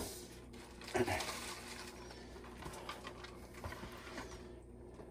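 Faint handling noises in a quiet room: a short knock about a second in, then a few light clicks, as of things being moved about.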